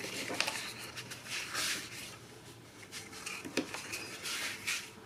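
Sheets of patterned scrapbook paper being handled and slid over one another on a cutting mat: soft rustling and swishing, with a few light taps.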